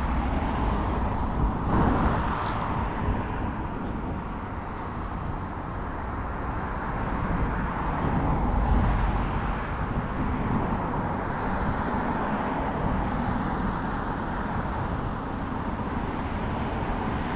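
Steady outdoor background noise with a deep rumble, swelling about two seconds in and again around nine seconds.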